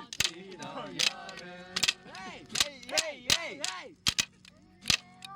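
Large wood bonfire crackling, with sharp loud pops about once a second, over people's voices.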